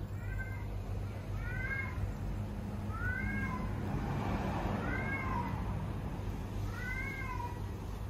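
Ginger stray cat meowing repeatedly: about five short meows, each rising then falling in pitch, roughly one every second and a half.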